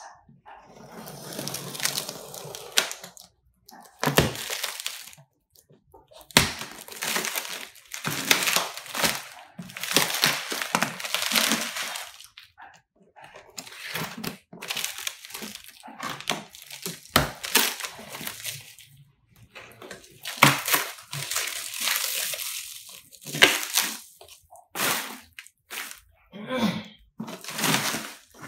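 Plastic stretch wrap crinkling and tearing as it is pulled off a cardboard box by hand, in irregular rustling bursts with a few sharp cracks.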